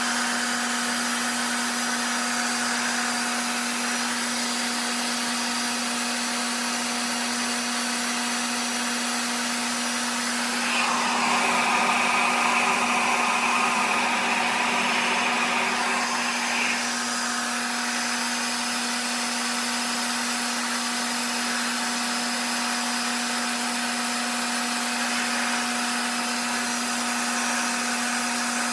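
RevAir reverse-air blow dryer running steadily, its suction drawing air through the hair, with a constant hum under the rush of air. Roughly halfway through, the airflow turns louder and higher for about six seconds, then settles back.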